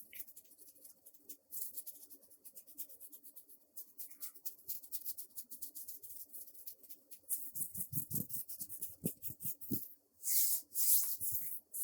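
Brush bristles flicked and stroked against a surface close to the microphone: a fast run of short, crisp scratchy strokes, several a second, growing louder later on, then a few longer, louder sweeps about ten seconds in.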